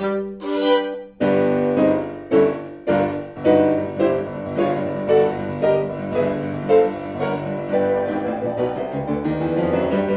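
Piano music: notes and chords struck at a regular pace, each ringing and fading over a sustained low bass note.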